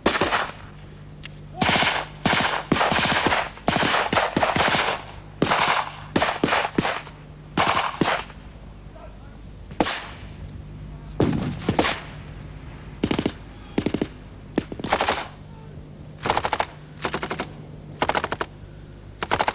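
Blank small-arms fire from a field exercise: short bursts from a machine gun mixed with single rifle shots, coming in irregular clusters, with a lull about eight seconds in.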